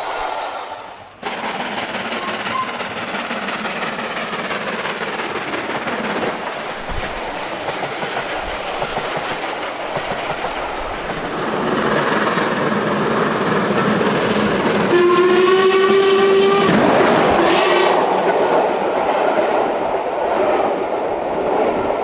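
Recorded steam locomotive running on the rails, its sound building up partway through. About fifteen seconds in comes a whistle blast lasting under two seconds, followed by a short toot.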